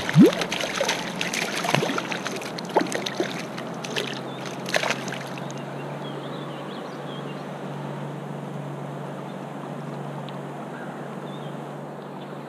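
A trout splashing and thrashing at the water's surface as it is let go, a run of splashes over the first five seconds. After that comes a steady low hum over a soft wash of water.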